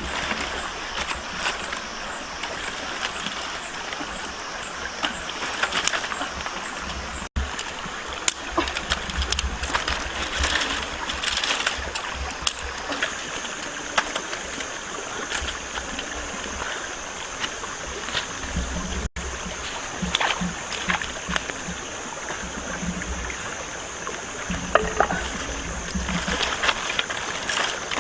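Running water with splashing and scattered clicks, as from wading or handling things in a shallow stream.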